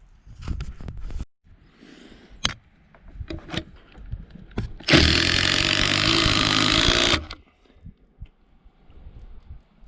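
A handheld power tool runs in one steady burst of about two seconds, then stops abruptly. Before it come a few knocks and clicks of handling.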